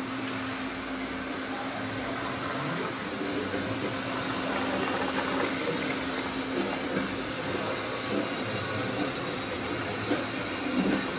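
Radio-controlled model construction trucks running: a steady motor whine over continuous scraping, rumbling noise.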